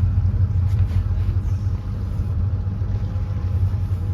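Motorboat engine running steadily under way, a loud low rumble.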